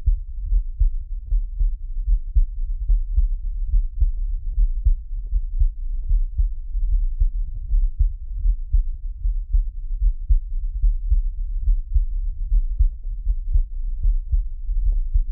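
Heartbeat sound effect: deep, low thuds beating in a steady, even rhythm, a few a second.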